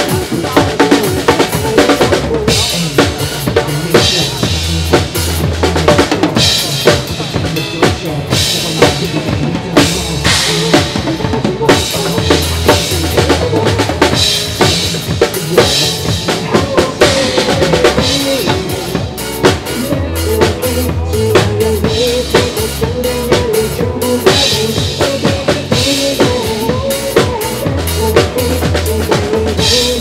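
A drum kit played live in a driving pop groove: kick, snare with rimshots and cymbals, struck several times a second. It plays along with a recorded pop song whose bass and melody sound underneath.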